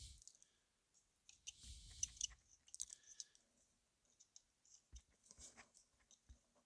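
Faint, scattered clicks of a diesel heater's plastic wiring connectors being handled and plugged together.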